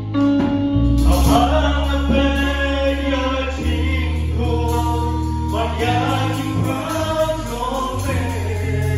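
Live gospel worship music: voices singing a slow song into microphones over electric guitar, steady low bass notes and held chords. The singing comes in about a second in.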